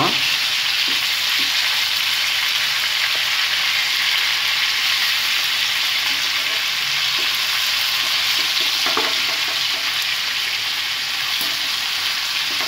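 Marinated chicken pieces sizzling steadily in hot oil in a pan, with a few faint clicks of metal tongs turning the pieces.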